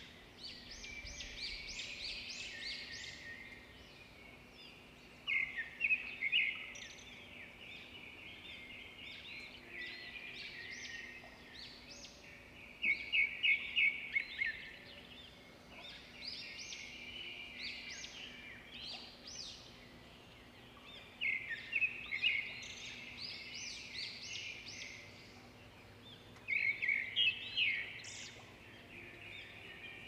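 Budgerigars chattering and warbling: a continuous run of quick chirps, with louder clusters of rapid chirps every several seconds.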